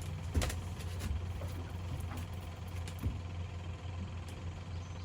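Boat motor running steadily with a low hum, with a few faint clicks over it.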